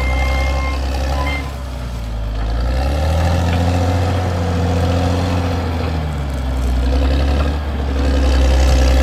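Caterpillar D6R XL bulldozer's diesel engine running under load, its pitch sagging and picking up again twice as it works. Its reverse alarm sounds for about the first second.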